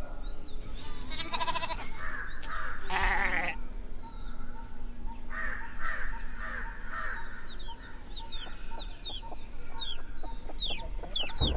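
Rural village ambience of animal and bird calls: two loud wavering calls in the first few seconds, some longer calls in the middle, then a run of quick high falling chirps near the end.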